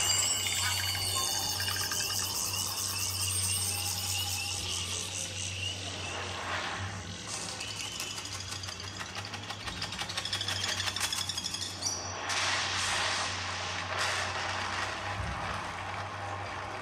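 Demo audio of music mixed with sound effects, played through a Samsung Galaxy S9's AKG-tuned stereo speakers with Dolby surround sound switched on. It has several sudden swells over a steady low hum.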